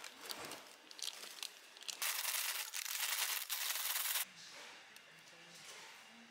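Paper rustling and tearing, then a paper bag of fries shaken hard for about two seconds to coat them in seasoning powder, stopping suddenly.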